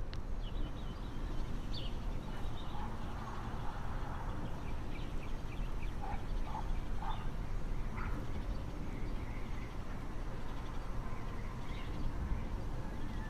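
Scattered short bird chirps and a few louder calls over a steady low rumble.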